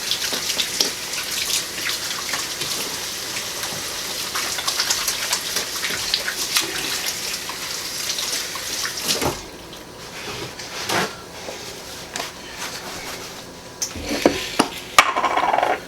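Kitchen tap running as hands are washed under it, a steady hiss of water that shuts off about nine seconds in. A few scattered knocks and clatters follow.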